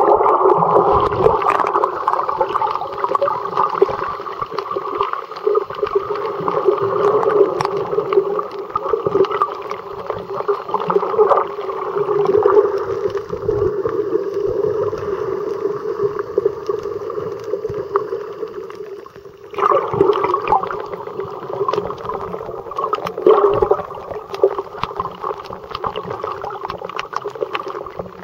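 Underwater sound picked up by a submerged camera over a coral reef: a steady, muffled drone with many small clicks and crackles. It drops out briefly about two-thirds of the way through.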